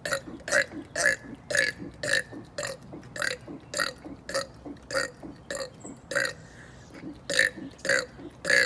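A man burping on purpose in rapid succession, short burps at about two a second, with a brief pause about six seconds in.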